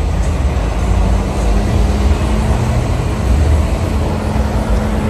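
Heavy vehicles passing close on a street: a loud low engine rumble, with a steady drone that sets in about a second in as a semi truck and lowrider cars go by.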